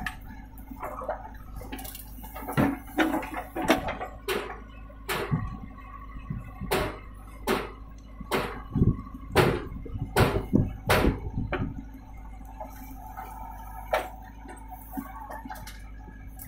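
JCB 3DX backhoe loader's diesel engine running steadily under load, with a string of irregular sharp knocks and clatters as the backhoe bucket digs soil and drops it into a steel tractor trailer. The knocks come thickly through the first two-thirds, then ease off, leaving the engine's hum.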